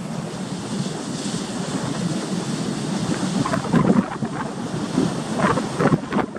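Sea surf breaking and washing over a rocky shore, with wind rumbling on the microphone. The surf swells louder about four seconds in and again near the end.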